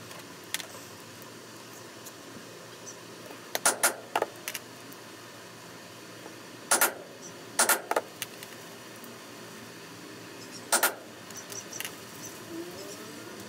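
Metal letter stamps being struck to re-punch letters into cased (dampened) bovine leather about 4 mm thick, re-stamping letters that came out crooked. About seven sharp knocks come singly and in quick pairs, with a few seconds between groups.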